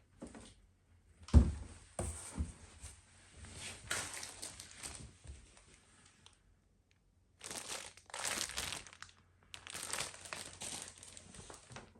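Packaging crinkling and rustling in irregular bursts as a dehumidifier is unpacked from its box, with one sharp thump about a second and a half in and a brief lull past the middle.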